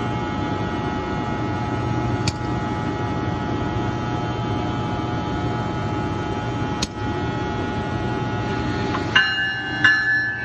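ALP-46 electric locomotive humming steadily, with two sharp, loud ticks a few seconds apart. About nine seconds in, a bell starts ringing with repeated strikes.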